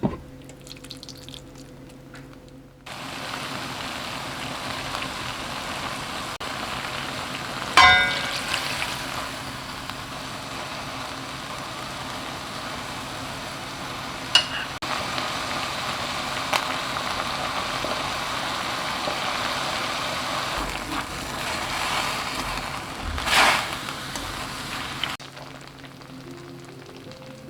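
Food frying and sizzling in a pan, starting about three seconds in and stopping near the end, with three sharp clanks of a utensil or pan, the first one ringing.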